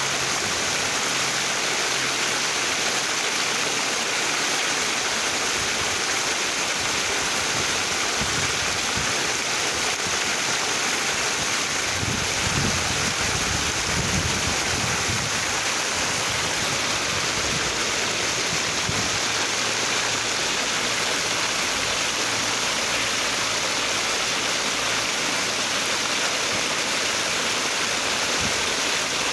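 A steady stream of water falling and splashing into a pool: a constant rushing noise, with a brief low rumble for a couple of seconds around the middle.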